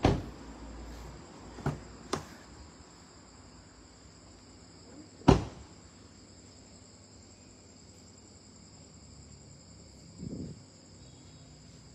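A car door shut with a thud, then a couple of light knocks and a sharp single knock about five seconds in, over a faint steady high-pitched background tone.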